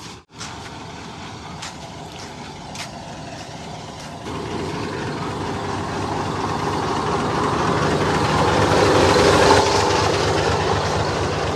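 Tour bus engine running close by, with a low rumble. It steps up about four seconds in and grows steadily louder, peaking near the end.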